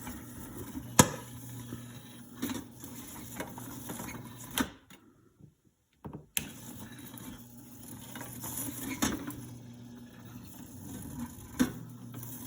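Popcorn machine's kettle-stirring motor humming steadily while the last kernels pop in scattered single pops a second or more apart: the popping is slowing, the sign that the batch is nearly done. The sound drops out briefly about halfway through.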